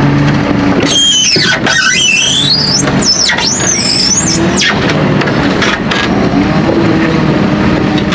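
Tractor and rear-discharge muck spreader running steadily and loudly. For about four seconds, starting a second in, a high-pitched squeal wavers up and down over the machine noise.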